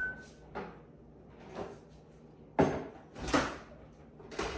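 Kitchen cupboard doors and drawers opening and closing as items are fetched, a series of separate knocks and thuds about a second apart, the sharpest about two and a half seconds in.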